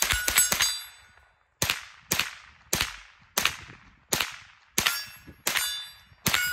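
Winchester Wildcat .22LR semi-automatic rifle firing unsuppressed: a quick string of shots, then steady single shots about every two-thirds of a second. The hits on steel targets ring after the shots.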